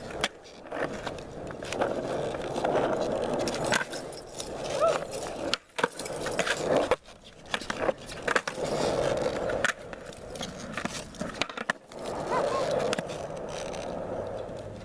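Skateboard wheels rolling over rough asphalt, a steady gritty rumble broken by sharp clacks of the board's tail and wheels hitting the ground. The rolling drops out suddenly a few times, for under a second each.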